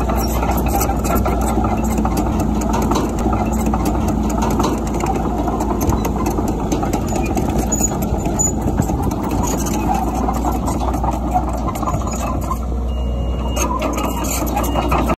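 Komatsu D31PX crawler dozer's diesel engine running steadily, with a dense clatter of many small clicks over it.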